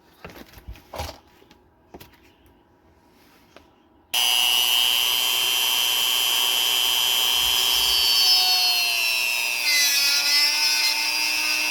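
A few faint handling clicks, then a Dremel rotary tool starts with a loud, steady high whine as it cuts a replacement toy-train cog in half. Its pitch dips for a while and recovers as it is pressed into the cut.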